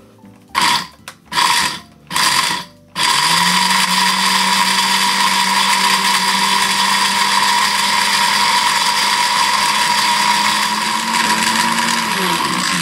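Tiger blender's mill jar grinding dried shiitake mushrooms into powder: three short pulses, then a steady run of about ten seconds. The motor hum rises as it spins up and falls away as it stops near the end.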